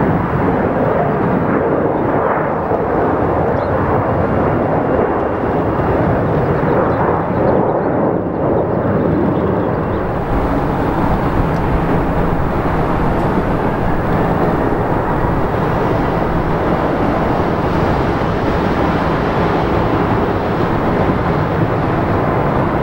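Jet engine noise, a steady loud rush from airliners on the runway: first a Delta Connection Embraer E175 with its GE CF34 turbofans, then, after a change about ten seconds in, a Delta Boeing 737-800 with its CFM56 turbofans.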